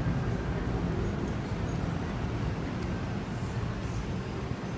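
Steady city street traffic noise: cars driving past with a low, even rumble.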